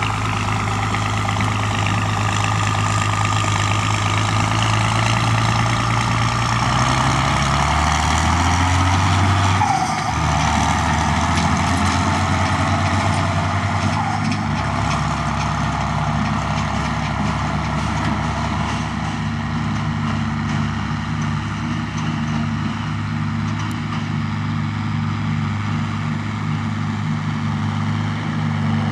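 Heavy tractor engines running under load, the engine note shifting several times as revs change.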